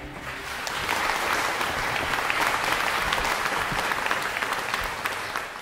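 Audience applauding, swelling about a second in and fading near the end.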